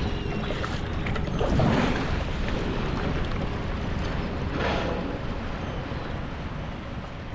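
Wind buffeting the microphone over open sea water, a steady rushing noise, with two louder whooshes, about a second and a half in and just under five seconds in.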